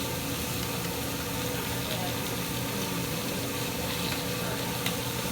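Food sizzling on a hibachi griddle, with a steady low hum underneath.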